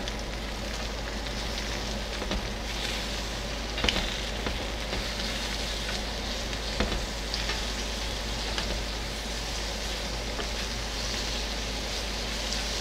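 Lamb chops sizzling steadily on a hot cast-iron ridged grill pan, with a few sharp clicks of metal tongs as the chops are turned over.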